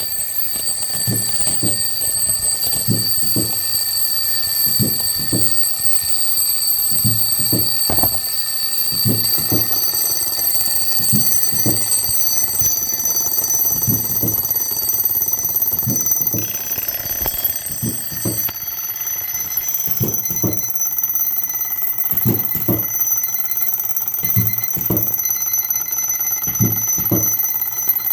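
Four alarm clocks ringing at once, their high steady tones overlapping. About a third of the way in one tone joins, and later another drops out. Irregular low knocks sound underneath throughout.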